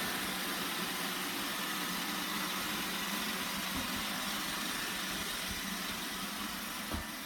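iRobot Roomba 960 robot vacuum running: a steady whir of its motors and brushes, with a small knock near the end.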